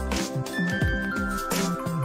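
Background music: a melody of held notes over a bass line with a beat.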